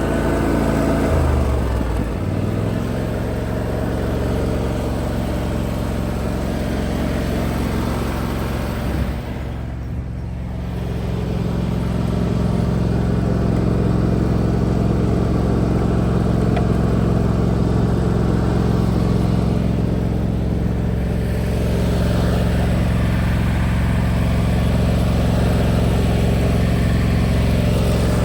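John Deere X320 riding lawn mower's engine running steadily. Its pitch drops about a second in, and it dips in level briefly about ten seconds in before coming back up.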